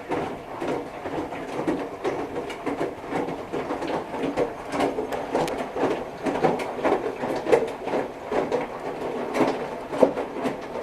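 Whirlpool Duet Sport front-load washer's drum turning during the wash, laundry and water tumbling and sloshing with an irregular run of soft clunks.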